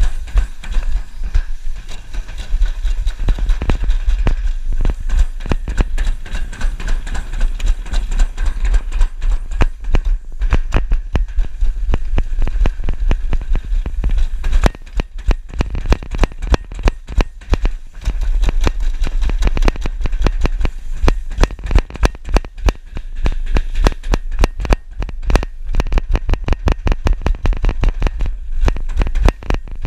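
Toboggan sled running down a steel summer toboggan trough: a steady low rumble with dense rattling knocks as the sled jolts along the metal channel.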